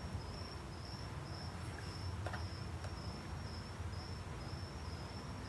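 A faint high-pitched trill, broken into short repeated pieces, over a low steady hum, with a couple of faint clicks from handling the plastic camera mount.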